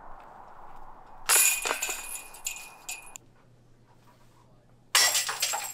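Disc golf basket chains jingling as a putt hits them, twice: a burst about a second in that lasts about two seconds and stops abruptly, and another near the end.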